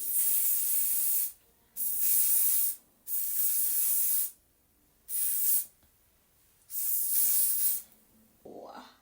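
Aerosol lace-bond adhesive spray hissing in five bursts, each half a second to about a second and a half long with short pauses between: another coat of wig glue being sprayed along the hairline.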